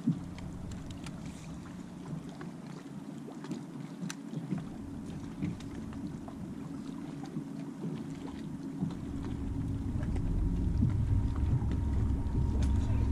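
Ambient sound aboard a bass boat on open water: steady water and hull noise with a low hum. From about nine seconds in, wind rumbles on the microphone and grows louder.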